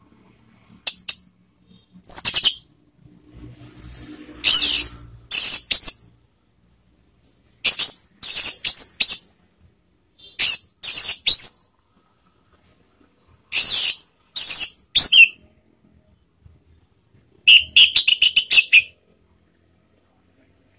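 Orange-headed thrush singing: about seven short phrases of rapid, high whistled notes, each lasting under a second or two and separated by brief pauses.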